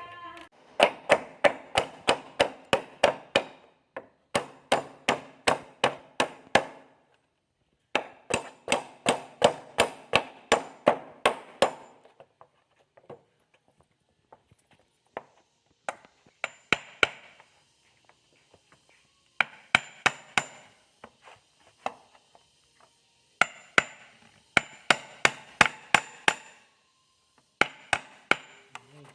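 Hammer blows on wood in quick runs of about four strikes a second, each blow ringing briefly, with short pauses between the runs.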